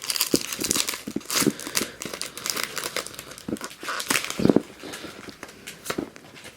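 Foil wrapper of a Pokémon trading-card booster pack crinkling and tearing as it is pulled open by hand, in irregular crackles.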